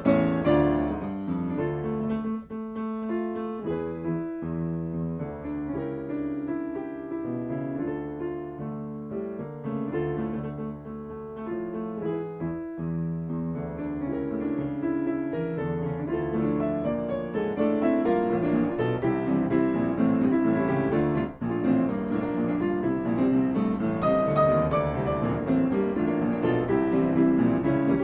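Solo piano music. It plays softly at first and grows fuller and louder from about halfway through.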